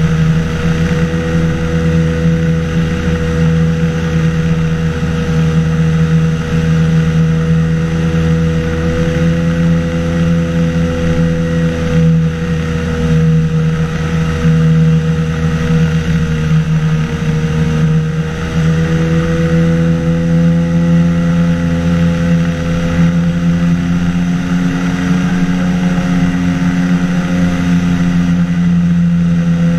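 Engine and pusher propeller of a flying-boat microlight trike droning steadily in flight. A little past halfway the note dips briefly, then settles slightly higher.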